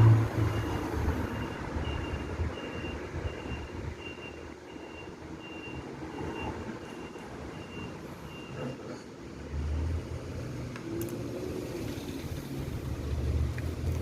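A short high electronic beep repeating about every half second, stopping about eight and a half seconds in, over a low motor rumble that swells again near the end.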